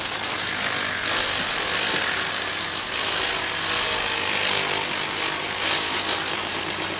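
Electric paper shredder running steadily as it chews through paper, a continuous grinding noise.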